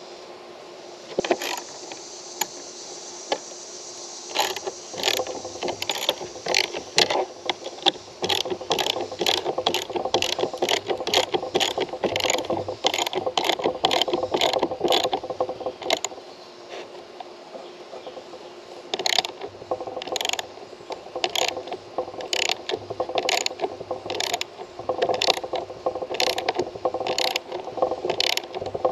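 Hand ratchet wrench clicking in quick, even strokes, about two clicks a second, as a bolt is tightened. It stops for a few seconds past the middle, then clicks on a little slower.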